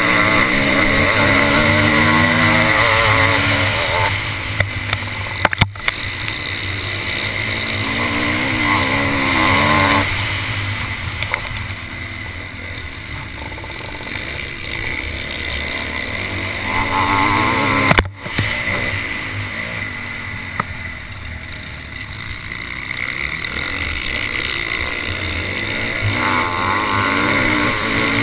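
Motocross bike engine heard from a camera mounted on the bike, revving up and falling back again and again at race pace over a steady rush of noise. The sound briefly cuts out twice.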